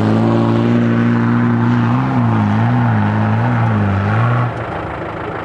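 Land Rover Discovery engine revving hard as it drives up a steep hill climb. The revs hold high, then rise and fall several times as it bounces up the slope, and the engine sound drops away suddenly about four and a half seconds in.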